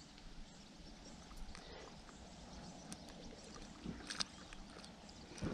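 Faint lapping of lake water against an inflatable float tube, with a few small splashes and ticks.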